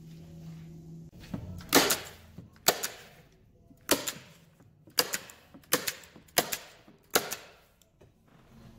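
Hand-held framer's point driver firing points into the back of a picture frame. About seven sharp snaps come roughly one a second, starting near two seconds in, with a low steady hum under them.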